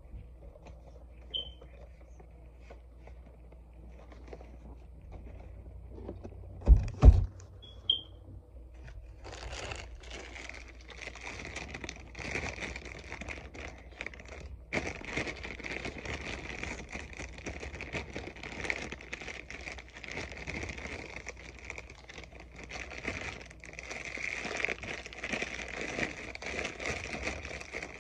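Plastic bag of Hershey's snack-size milk chocolate bars crinkling steadily as it is handled, starting about nine seconds in. Before that, a few soft rustles and two sharp knocks close together about seven seconds in.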